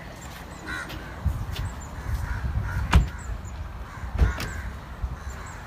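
Crows cawing, with small bird chirps, while two car doors of a Hyundai hatchback shut with sharp thumps, one about three seconds in and a second just over a second later.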